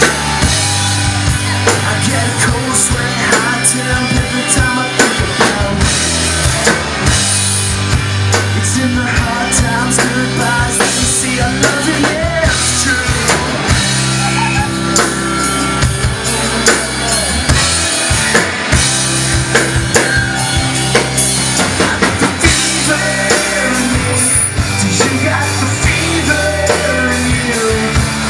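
Live rock band playing an instrumental stretch of the song: amplified electric guitars, bass and a drum kit keeping a steady beat.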